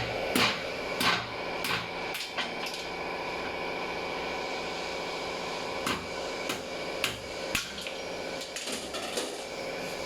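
Irregular sharp taps and knocks of hand tools on transmission parts during reassembly of a Honda CR-V automatic transmission, over a steady background hum.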